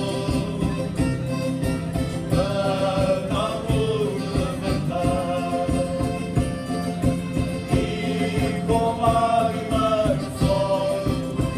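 Madeiran folk ensemble singing together in chorus over strummed small guitars and a steady rhythmic beat.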